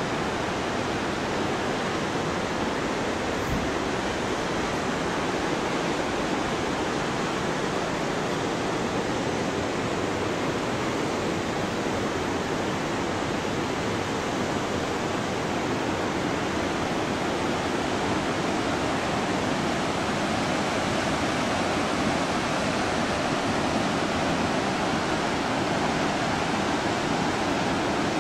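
The upper Ganga, a fast glacial mountain river, rushing in a steady, even roar that grows a little louder near the end.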